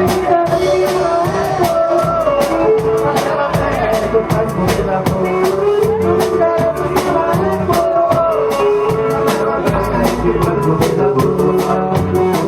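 Live band playing a xote on accordion (gaita) with drum kit, an instrumental stretch with a held melody over a steady beat.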